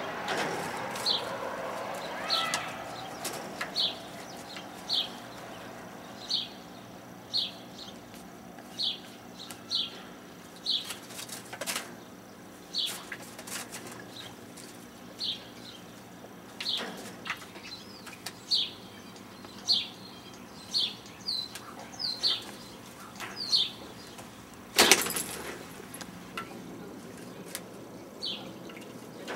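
African grey parrot flapping and ruffling its wings while bathing in a shallow dish, in several brief flurries with the loudest near the end. Short, high, falling bird chirps repeat about once a second throughout.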